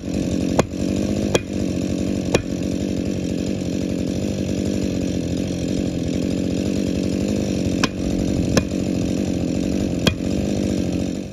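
Husqvarna two-stroke chainsaw running at high revs, cutting into a large spruce trunk, with a handful of sharp ticks over the steady engine sound. It cuts off abruptly at the very end.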